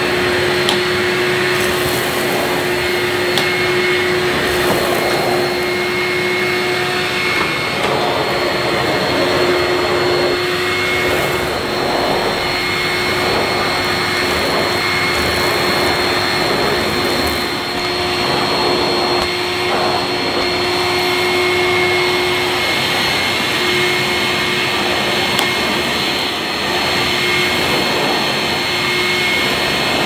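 National Capsule bagless footstool vacuum cleaner running steadily, a constant motor whine over its suction rush, while its floor nozzle is pushed back and forth over carpet.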